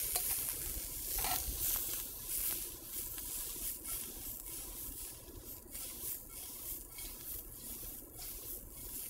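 Shrimp and vegetables sizzling in a hot wok as they are stir-fried, a steady hiss broken by short scrapes as tongs turn the food and the wok is tossed.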